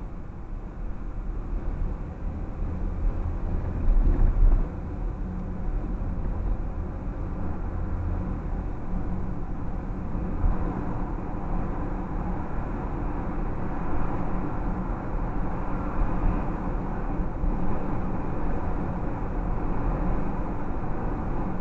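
Road noise inside a moving car's cabin: a steady low rumble of tyres and engine, with a brief louder rumble about four seconds in and more tyre hiss from about halfway.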